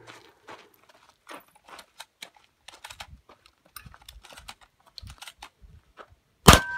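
A run of small clicks and rattles as 12-gauge shells are quad-loaded into a Stoeger M3000 semi-auto shotgun's magazine tube. Near the end comes one loud shotgun blast, followed by a steel target ringing with a steady two-note tone.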